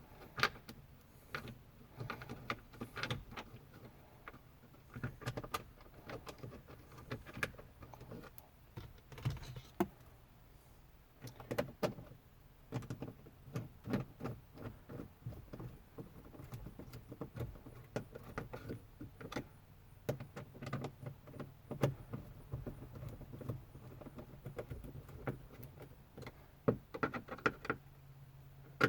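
Irregular small clicks and rattles of a Torx driver, screws and interior trim being handled as trim screws are driven back in, over a faint steady low hum.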